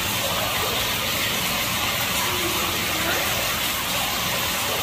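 Steady rush of running water pouring into a goldfish pond.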